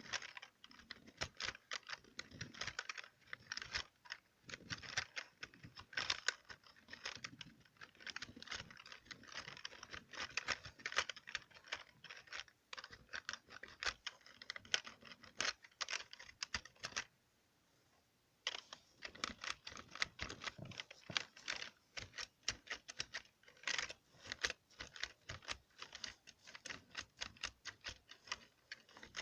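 Computer keyboard keys being typed and tapped in a fast, dense clatter of clicks, stopping briefly about 17 seconds in before carrying on.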